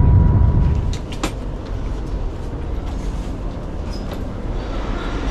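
Low, loud rumble of the Shanghai Maglev running at about 300 km/h, heard from inside the cabin. About a second in it drops to quieter cabin noise with a few sharp clicks.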